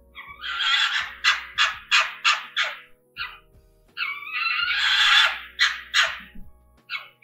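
Red fox calls: a hoarse call, then a quick run of short raspy barks, a long harsh scream about four seconds in, and a few more short barks near the end. Quiet background music runs underneath.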